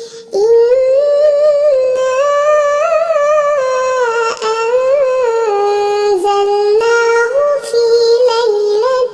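A single high-pitched voice chanting Quran recitation in the melodic mujawwad style. After a short breath at the start, it sings one long ornamented phrase that rises and falls in pitch, with small trills.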